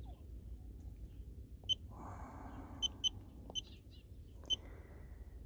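A digital car-battery tester beeping in short single beeps at one high pitch, about four times, as its buttons are pressed to enter the battery's rated cold-cranking amps before a test.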